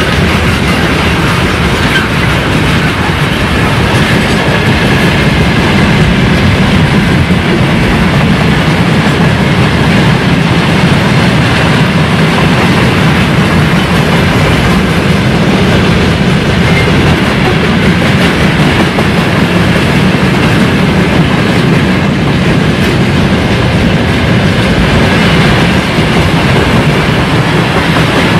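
Mixed freight train of tank cars, gondolas and container flats rolling past at speed close by: a loud, steady rumble of steel wheels on the rails.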